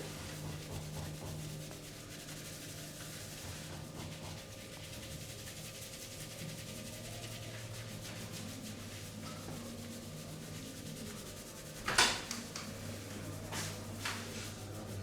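Hands rubbing over skin and hair in a massage, a steady soft friction. Near the end there is one loud sharp smack, then two lighter ones.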